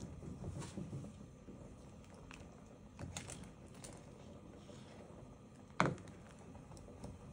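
A black plastic ladle stirring a pot of curry, with scattered light clicks and one sharp knock near the end as the ladle strikes the metal pot.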